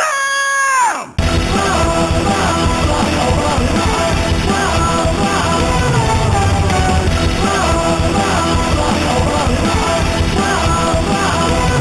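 A pitched electronic tone that slides down and cuts off about a second in, then loud rock music with shouted vocals and a steady beat.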